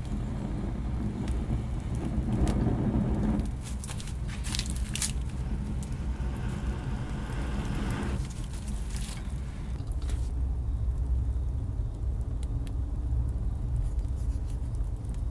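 Small wood fire burning, with scattered sharp crackles and pops over a steady low rumble.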